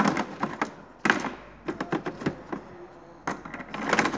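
Metal parts clinking and rattling as they are handled, in four quick bursts of sharp clicks, loudest about a second in and near the end.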